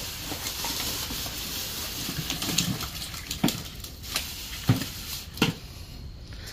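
Wet slaps and thuds of freshly caught tilapia being tipped from a cooler onto a concrete floor: four sharp knocks about halfway through, over a steady hiss.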